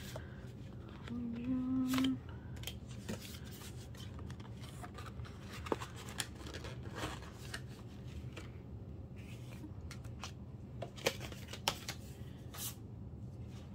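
Small album packaging and photocards being opened and handled by hand: scattered ticks, taps and plastic crinkles, with a short hummed note from a person about a second in.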